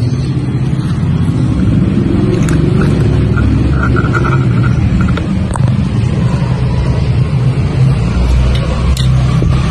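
Steady, loud low rumble, with a few faint clicks.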